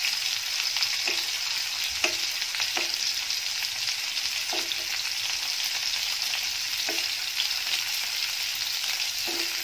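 Stuffed spiny gourds (kantola) sizzling steadily as they fry in oil in a nonstick kadhai. A steel spoon knocks and scrapes against the pan every second or two as the gourds are turned over.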